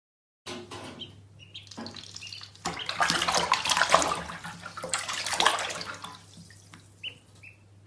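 Water running and splashing, loudest in the middle, with a few short high chirps near the end.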